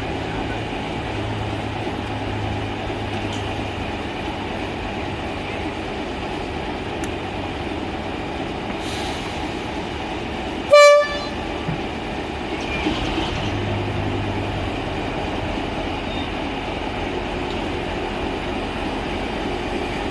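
Diesel locomotive idling steadily, with one short, loud blast of a horn about halfway through.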